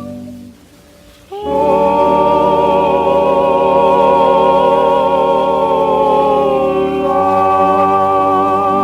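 Vocal harmony group singing a sustained closing chord with vibrato on a 78 rpm record. It enters after a brief pause about a second and a half in and moves to a new chord near the end.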